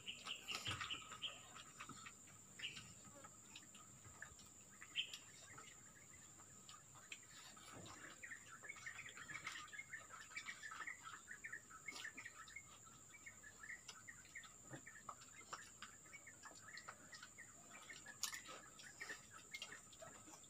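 Faint bird chirping, with a run of quick chirps around the middle, over a steady faint high tone and a few soft clicks.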